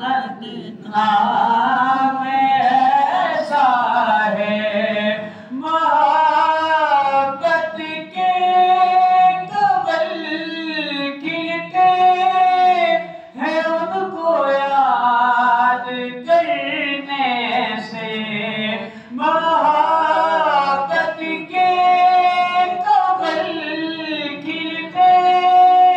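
A man's voice singing a naat, an Urdu devotional poem in praise of the Prophet, unaccompanied, into a handheld microphone. The phrases are long, with held notes and ornamented pitch glides, and short breaths between them.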